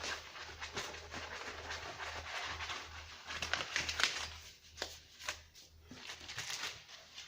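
Items being handled and sorted by hand: rustling and crinkling of packaging with light taps and clicks, quieter in the second half.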